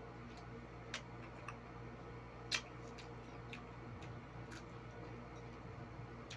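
Quiet eating by hand: a few short, irregularly spaced clicks and mouth smacks, the sharpest about two and a half seconds in, over a low steady electrical hum.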